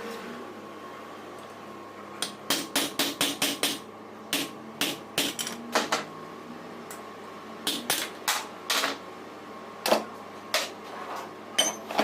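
Hammer tapping: a quick run of about eight sharp knocks, then a dozen more spaced irregularly, over a faint steady hum.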